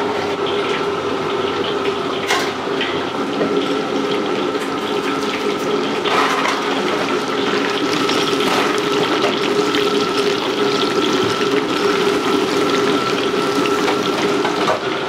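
Busy wok-station kitchen noise: a steady hiss with a constant hum, water running, and a few sharp metal clinks about two and six seconds in.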